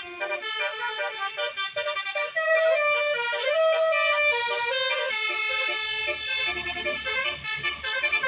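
Multi-tone bus 'telolet' air horn playing a tune, several held horn notes sounding together and changing pitch in steps. A faint low rumble comes in toward the end.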